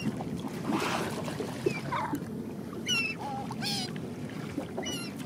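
Gulls calling in short, high squawks, several times over, above the steady low rumble of the boat and the water.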